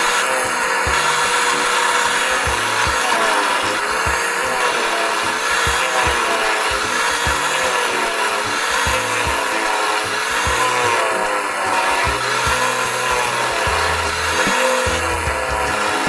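A power tool working wood, running steadily with its motor pitch dipping and recovering about every two seconds as it is pushed through the workpiece.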